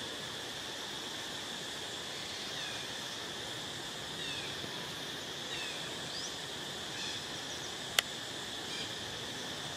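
Outdoor forest ambience: a steady high insect hum, with a few short high chirps now and then and one sharp click about eight seconds in.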